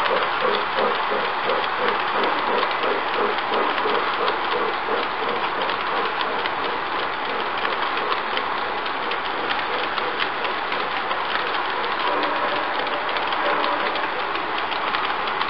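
G-scale model freight train wagons rolling past on carpet-laid track: a steady whir and rumble of wheels on the rails. A quick, regular clickety-clack of wheels over the rail joints is plain at the start and fades out after a few seconds.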